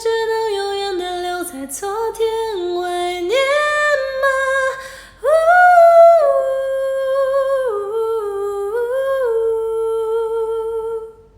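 A woman singing unaccompanied through a karaoke voice effect: long held notes that step up and down between pitches, with no clear words, stopping near the end.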